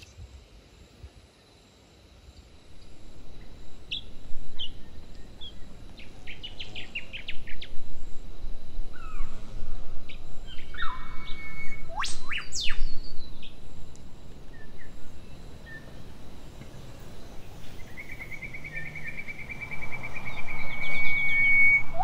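Several birds calling outdoors: bursts of quick chirps, then a loud sharp rising whistle about halfway through, and a steady high trill over the last few seconds, over a low background hiss.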